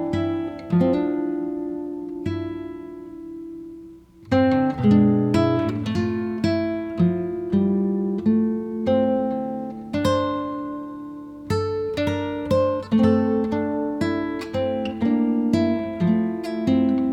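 Background music: acoustic guitar playing a string of plucked notes, with a brief lull about four seconds in.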